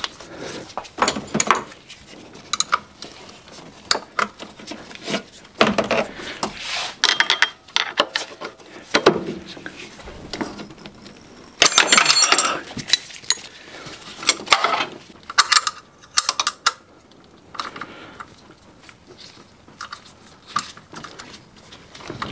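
Wrench clinking and scraping on the bolts of the water pump pulley on a Ford 2.0 engine as they are loosened, in irregular bursts of metal clicks. A longer, louder run of clinks comes about twelve seconds in.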